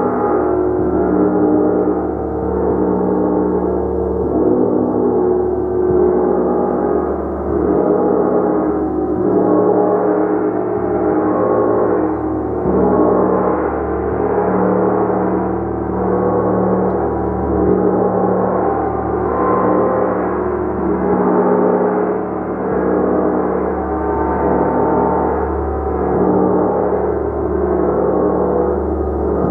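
A large gong played continuously: many overlapping tones sustained in a dense wash, swelling and ebbing every second or two with no gaps.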